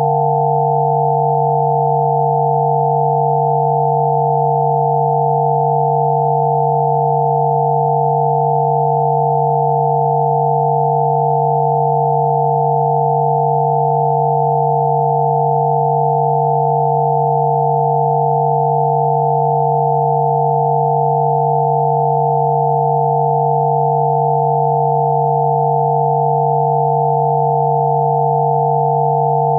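Synthesized 'healing frequency' drone: several steady sine tones sounding together, one low and a cluster of higher ones, held without any change in pitch or loudness.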